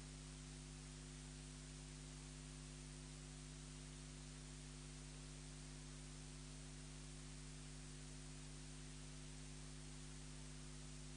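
Near silence: a faint, steady hiss with a low electrical hum, the noise of an idle audio line or open microphone.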